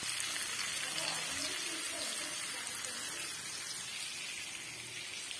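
Fish pieces sizzling as they fry in oil in a frying pan: a steady hiss.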